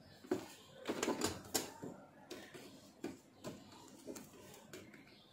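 Irregular small clicks and light knocks of cable connectors and a screwdriver being handled on an LED TV's circuit board, most of them a second or so in.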